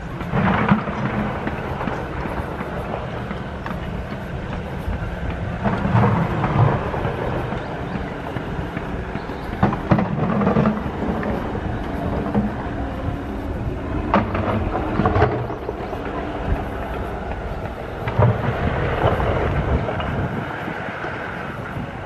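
Wind buffeting the camera microphone outdoors: a steady low rumble that swells into louder gusts every few seconds.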